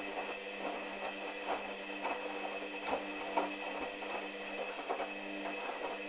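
Hoover Dynamic front-loading washing machine turning its drum during a rinse: a steady motor hum and whine, with the laundry and rinse water sloshing and splashing irregularly as they tumble.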